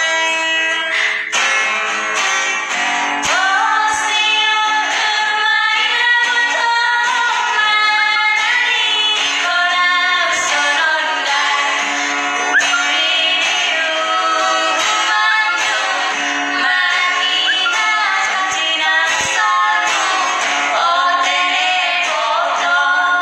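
Two women singing a song together, accompanied by an acoustic guitar that one of them plays.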